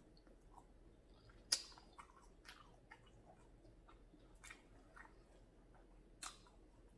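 Faint close-up chewing of food with scattered soft mouth clicks, the sharpest about a second and a half in.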